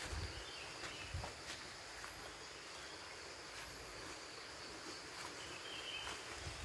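Quiet woodland ambience: a steady, faint high insect drone, with a few soft rustles and crunches of footsteps on dry leaf litter.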